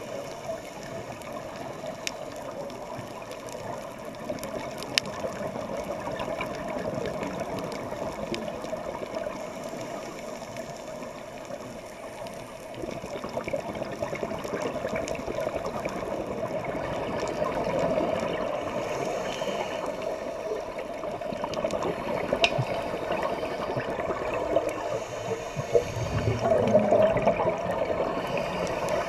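Underwater sound on a scuba dive, heard through the camera's housing: a steady watery hiss with a few sharp clicks. Bursts of exhaled regulator bubbles gurgle past, loudest about 26 seconds in.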